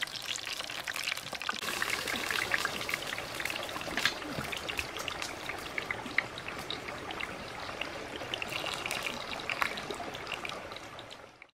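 Hot oil in a wok over a wood fire, sizzling steadily with scattered small crackles and pops, fading out near the end.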